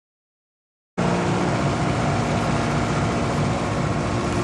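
Silence, then about a second in a boat engine cuts in, running steadily with a constant rushing noise over it.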